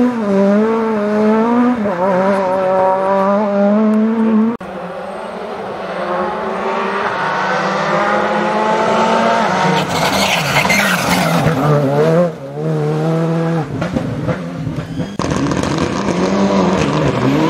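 Rally cars at full throttle on a tarmac stage, one after another. A Škoda Fabia's engine revs rise and drop through quick gear changes as it pulls away. Then a second Fabia's engine climbs steadily in pitch as it approaches and goes past loudly about ten seconds in, and further engine noise follows in the last seconds.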